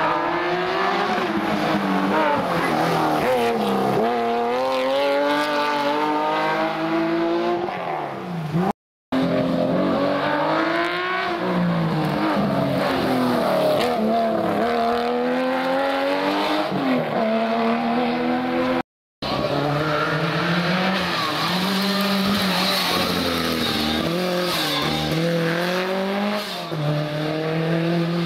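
Historic rally cars' engines revving hard, pitch climbing and dropping again and again with gear changes and lifts, in three clips cut apart by brief silences about 9 and 19 seconds in.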